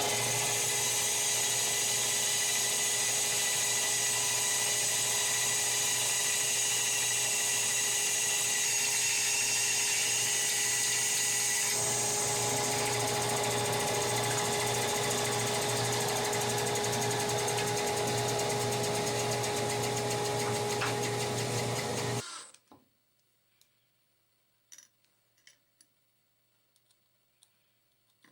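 Woodworking power tool running steadily under load, with a constant whine over a hiss of cutting. About halfway through the sound shifts slightly, and about 22 seconds in it stops abruptly, followed by a few faint clicks.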